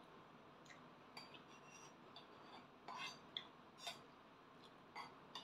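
Metal spoon and fork clinking and scraping against a ceramic plate while eating, a scatter of light clinks that is busiest around three to four seconds in.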